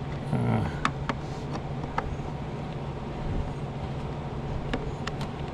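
Scattered light clicks and taps of parts being handled and fitted inside a car door while a window regulator is installed, over a steady low hum.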